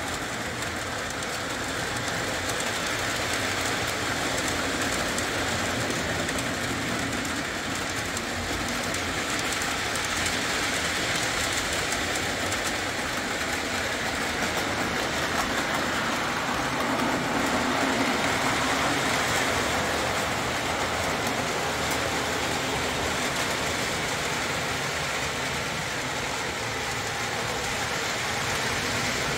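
Lionel O-27 Alco diesel model train running on three-rail tubular track: a steady rolling rumble of motor and wheels over the rails, swelling a little in loudness a little past the middle.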